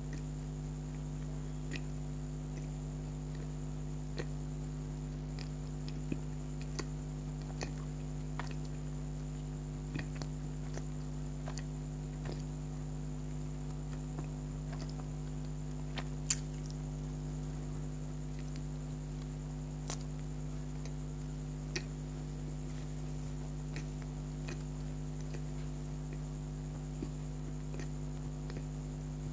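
Soft eating sounds of a person chewing donut: scattered small mouth clicks and squishes, irregularly spaced, the loudest about halfway through. Under them runs a steady electrical hum.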